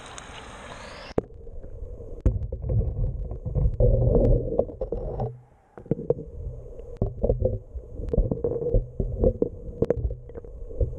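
Radio-controlled jet boat running on the water, heard muffled, with a motor hum that comes and goes, low rumble and frequent sharp knocks and splashes. The sound drops out briefly about halfway through, then picks up again.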